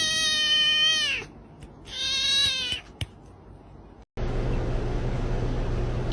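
A cat meowing: one long, drawn-out meow whose pitch drops at the end, then a shorter meow about two seconds in. After a cut, a steady low hum runs underneath.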